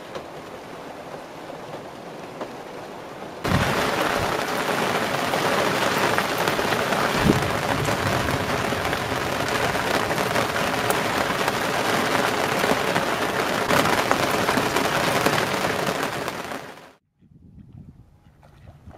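Rain falling steadily on a moored sailboat at night during a thunderstorm, a dense hiss with fine drop ticks. It grows clearly louder about three and a half seconds in and stops shortly before the end.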